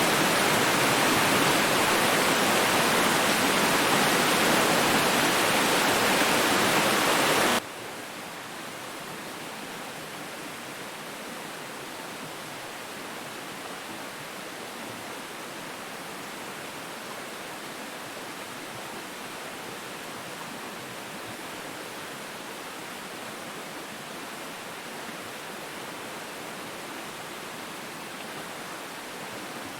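Running water: a steady rush that cuts off abruptly about a quarter of the way in, giving way to a quieter, thinner steady rush.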